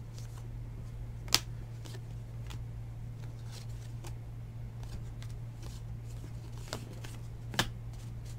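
2019 Donruss Elite football cards being flipped and slid against each other in the hands, with soft rustling strokes and a few sharp clicks of card edges, the loudest about a second in and two more near the end. A steady low hum runs underneath.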